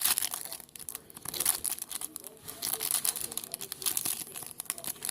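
Foil trading-card pack wrapper being torn open and crinkled in the hands, a run of irregular crackling rustles.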